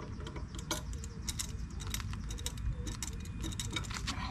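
Hand ratchet clicking in short irregular runs as bolts are worked loose, with a low steady rumble underneath.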